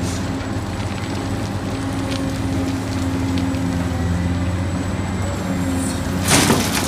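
Large Caterpillar hydraulic excavator's diesel engine running with a steady low drone as it swings a loaded bucket of earth, with a loud rush of soil and rock near the end.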